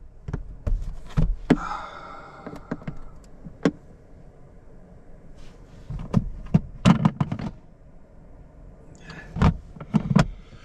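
Knocks and thumps of gear being handled in clusters inside a truck-bed camper shell, as things are set down on a plastic cooler lid and a bag is searched. There is a brief rustling scrape about two seconds in.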